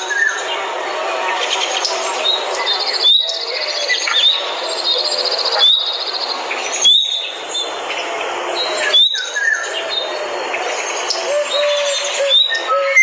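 Forest bird chorus: many birds calling at once over a dense background of calls, with short high chirps every second or two and fast high trills.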